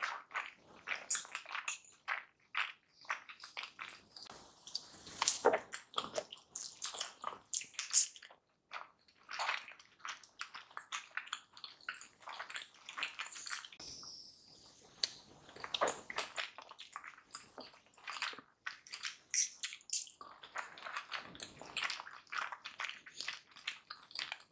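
Close-miked wet chewing of a prawn dumpling in chilli oil with the lips closed: a dense, irregular run of squelches, smacks and clicks from the mouth.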